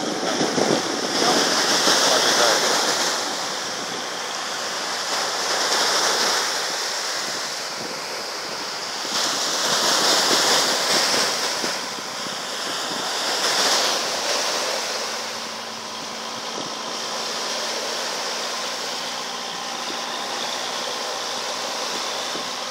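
Small waves breaking and washing up on a sandy beach, the surf noise swelling and fading every few seconds. From about the middle on, a faint steady low hum from the fishing boat's engine sits under the surf.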